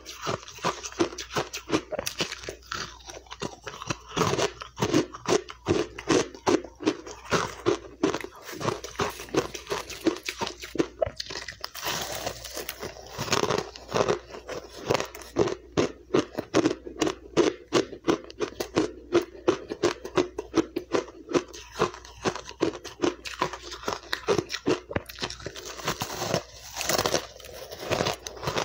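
Close-up crunching and chewing of crushed, refrozen ice in the mouth: rapid crisp crunches, several a second, with no break. A couple of longer, louder crunches come about twelve seconds in and again near the end.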